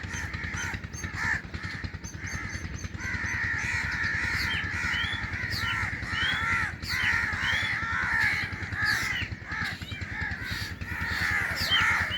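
Drongo chicks calling in the nest: a continuous chatter of harsh, overlapping calls with many short rising notes. A steady low rumble runs underneath.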